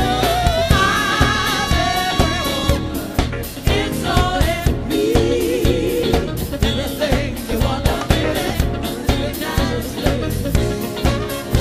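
Live band playing a soul song, with a woman singing lead over a steady drum beat and bass.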